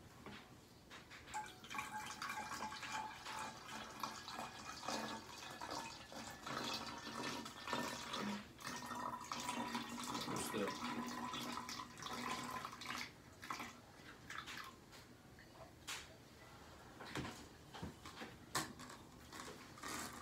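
Water poured from a plastic measuring cup into a plastic water bottle: a steady pour lasting about ten seconds, then a few light clicks and knocks of the plastic bottles and cup being handled.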